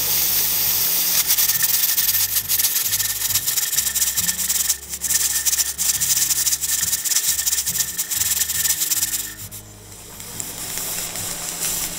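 Pressure canner's 10-pound weighted regulator jiggling on the vent pipe, a rapid rattling hiss of escaping steam that dies down about nine seconds in and then starts to build again. The jiggle is the sign that the canner has reached 10 pounds of pressure.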